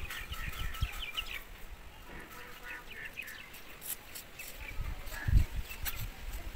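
Birds chirping in quick short calls, with a few dull low knocks, the loudest about five seconds in.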